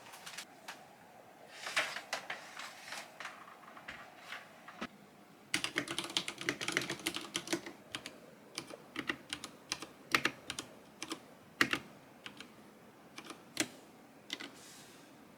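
Typing on a Ducky One 2 RGB mechanical keyboard with Cherry MX Red linear switches. Scattered keystrokes, a fast run of typing from about five to eight seconds in, then slower single key presses.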